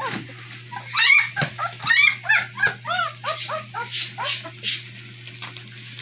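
A litter of German Shepherd puppies whining and squealing, many short high-pitched cries overlapping as they scramble against their mother to nurse, hungry. The cries are thickest in the first half and thin out near the end, over a steady low hum.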